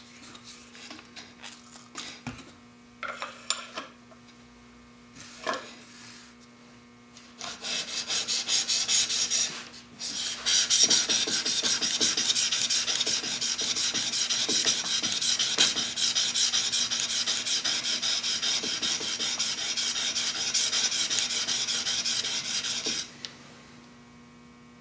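Steel knife blade held in a General sharpening jig, rubbed in quick, even back-and-forth strokes on a coarse DMT diamond plate: a steady rasping scrape, raising a burr on the edge. A few light clicks of handling come first, and the rubbing stops about two seconds before the end.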